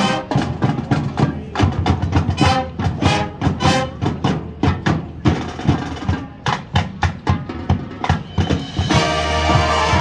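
High school marching band playing, the percussion driving it with quick, dense strikes. About nine seconds in the full band comes in on a sustained chord over heavy bass.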